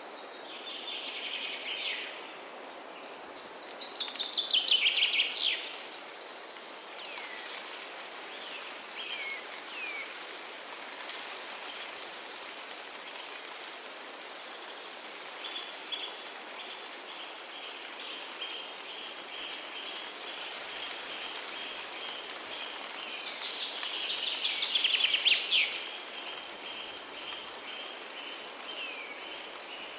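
Forest birdsong: a bird gives a fast falling trill about four seconds in and again near the 25-second mark, with scattered short falling calls and a long run of quick repeated notes in between, over a steady high hiss.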